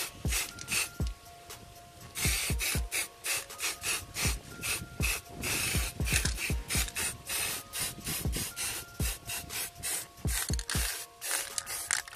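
Aerosol spray-paint can hissing in short passes as red paint is sprayed onto a brake caliper, with wind knocking on the microphone.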